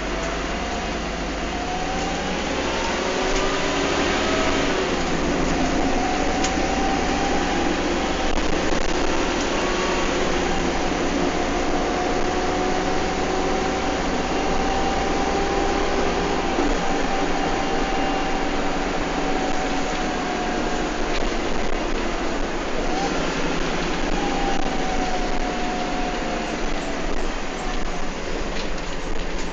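Bus running at speed, heard from on board: engine and driveline noise with a whine that slowly rises and falls as the speed changes, over steady road rumble.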